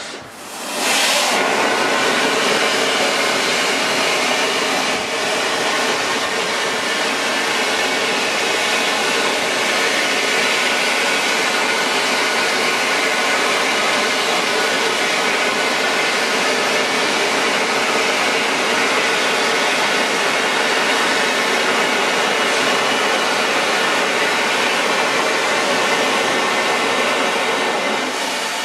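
Narrow-gauge steam locomotive's boiler blowdown: the blowdown valve opens about a second in and steam and boiling water blast out under boiler pressure as a loud, steady rushing hiss. It purges sludge and sediment from the bottom of the boiler.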